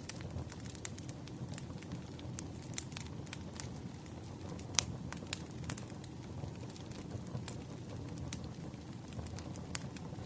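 Campfire crackling: irregular sharp pops and snaps over a low, steady rumble of burning wood, with one louder pop a little before the middle.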